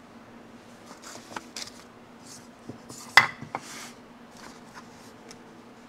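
Small handling noises on a workbench: light clicks and taps of hard objects and brief rustles as a legal pad is picked up and moved, with one sharp click about three seconds in. A faint steady hum runs underneath.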